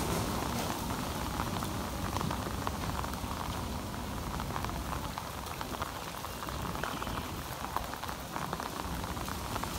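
Heavy rain falling on paved ground: a dense, even hiss dotted with many small drop splashes.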